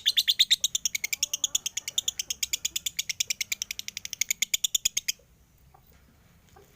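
Male lovebird chattering: a fast, even string of short, high chirps, about ten a second, that stops abruptly about five seconds in. Lovebird keepers read this kind of non-stop chatter as a sign of a male heading toward 'konslet', a state of peak excitement.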